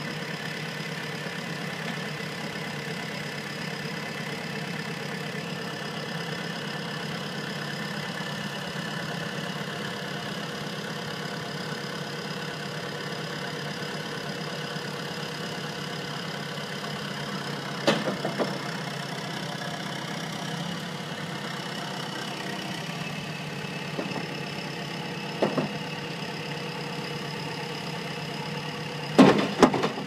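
JCB 1700B backhoe loader's engine idling steadily, with a sharp clunk about eighteen seconds in, another around twenty-five seconds, and a louder pair of clunks just before the end.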